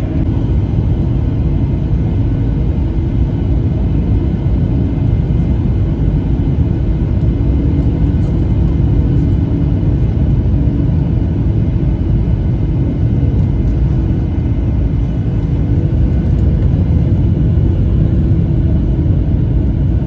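Airliner cabin noise in flight: a loud, steady low rumble of jet engines and airflow, with a few faint steady hum tones over it.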